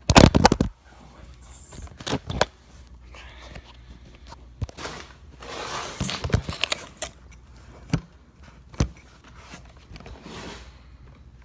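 Handling noise from a phone or camera being positioned: a loud knock and rustle at the start, then scattered sharp clicks and knocks with a stretch of rustling in the middle.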